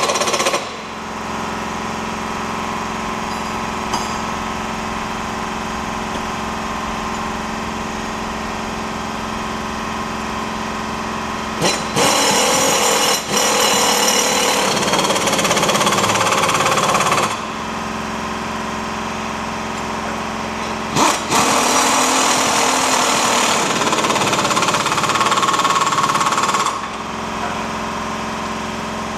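Impact wrench hammering in long runs while tightening the tow-bar mounting bolts under a van: a short run ends just after the start, and two more of about five seconds each come later. A steady hum runs underneath.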